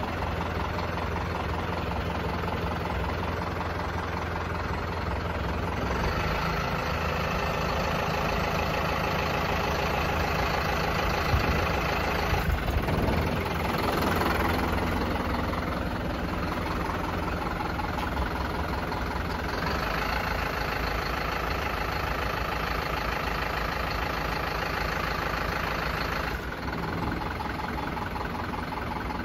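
Truck engine idling steadily, its tone shifting slightly a few times.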